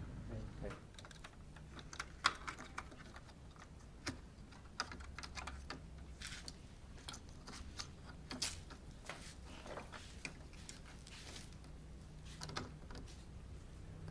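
Irregular light clicks and taps from hands and tools handling washing-machine parts during a repair, with a few sharper knocks among them.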